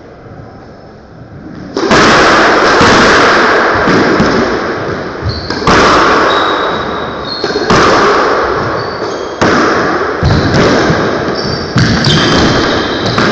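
Squash rally: the ball struck by racquets and smacking the court walls every second or two, each hit loud and echoing round the court, with short shoe squeaks on the wooden floor between shots. The first hit comes about two seconds in.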